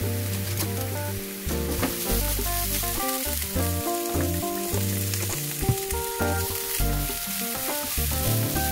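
Chopped green onion and ginger sizzling in oil in a nonstick frying pan, stirred with a silicone spatula near the end. Background music plays over the sizzle.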